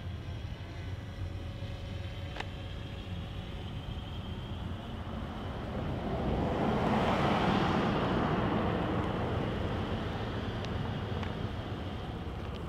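A vehicle passing by: its noise swells up about six seconds in, peaks, then fades over a few seconds, over a steady low outdoor rumble.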